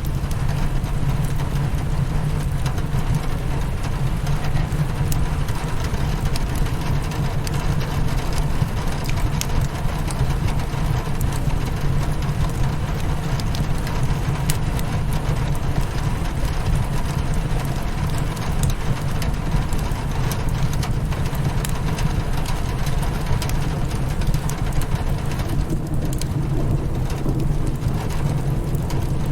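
Steady rain hitting a windowpane mixed with a wood fire crackling in scattered sharp pops, over a steady low rumble.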